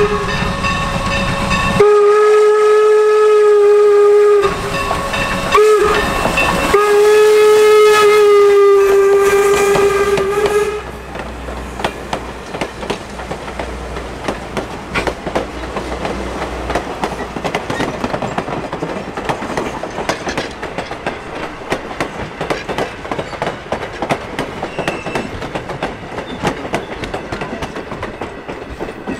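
Steam locomotive No. 475's whistle sounding four loud blasts (long, long, short, long), the grade-crossing signal, ending about ten seconds in. Then the wooden passenger coaches roll past with a steady clatter of wheels over the rail joints.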